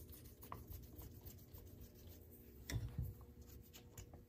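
Faint clicks and taps of small carburetor parts and screws being handled on a workbench, with one duller knock about two-thirds of the way through.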